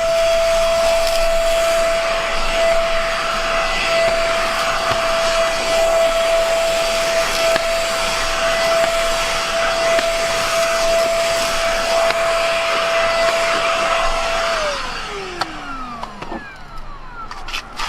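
Vacuum cleaner running steadily, a constant whine over a loud rushing hiss. About three-quarters of the way through it is switched off, and the motor winds down with a falling pitch.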